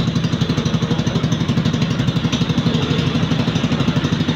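Yamaha Sniper 155's single-cylinder engine idling steadily through a newly fitted NLK aftermarket muffler, with an even, fast pulse. The mechanic says the exhaust joint still leaks.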